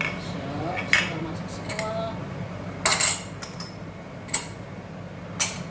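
Spoon stirring soup in a stainless steel pot, clinking against the pot four or five times over a steady low hum.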